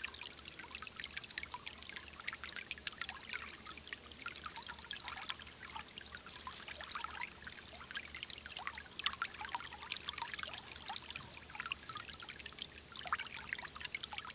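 Small artificial garden stream trickling and babbling over stones, a steady stream of tiny bubbling splashes.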